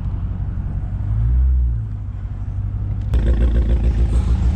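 Dodge Hellcat's supercharged V8 being revved to rock the car free of snow. It swells briefly about a second in, then jumps up sharply at about three seconds and stays loud.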